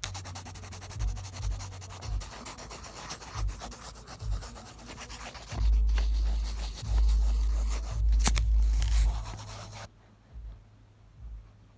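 Pencil scribbling fast looping strokes on paper close to the microphone, a steady scratchy rubbing, with dull low bumps in the middle as the hand presses and moves over the page. The scribbling stops about ten seconds in.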